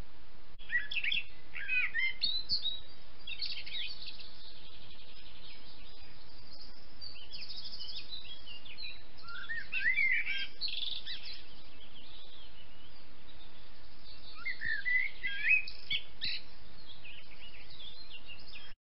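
Woodland songbirds singing a dawn chorus: quick chirps and rising whistles in three spells, over a steady hiss. It cuts off abruptly near the end.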